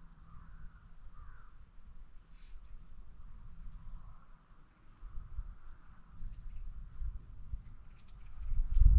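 Outdoor ambience of wind rumbling on the microphone, swelling much louder near the end, with faint high-pitched bird chirps repeating throughout.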